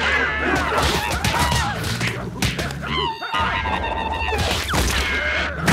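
Cartoon slapstick brawl sound effects: a rapid flurry of whacks, thuds, crashes and whooshes, mixed with wavering cartoon cries.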